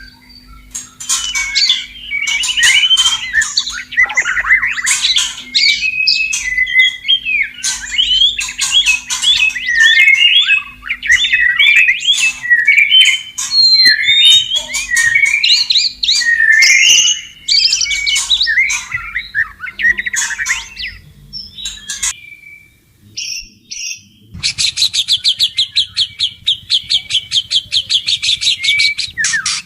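White-rumped shama singing a loud, rapid, varied song of whistled and chattering phrases, which breaks off about three-quarters of the way through. After a short pause, a fast, even run of repeated notes near the end.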